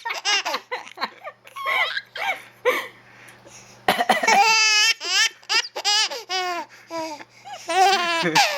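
Baby laughing hard in repeated high-pitched peals, the belly laughter set off by an adult's coughing. A short sharp sound about four seconds in is followed by the longest and highest run of laughter.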